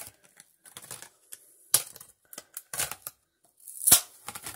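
Clear plastic blister pack crackling and clicking as fingers pry it off its cardboard backing card, in irregular bursts, with a sharp snap a little under two seconds in and a louder one about four seconds in.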